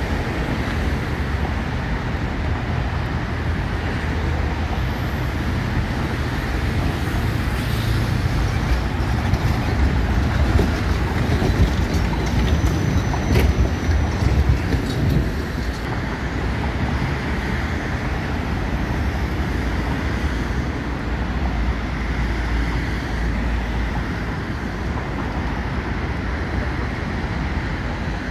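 Electric tram running past close by on its rails. The rumble swells about halfway through, with a brief high tone and a click as it goes by. Steady road traffic and low wind rumble run underneath.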